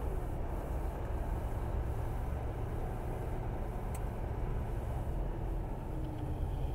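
Truck's diesel engine running at low speed, heard from inside the cab as the truck rolls slowly, with one short click about four seconds in.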